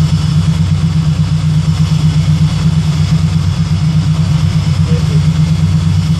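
Terminator-swapped Fox-body Mustang's supercharged 4.6-litre DOHC V8 idling steadily while its cooling system is burped of trapped air.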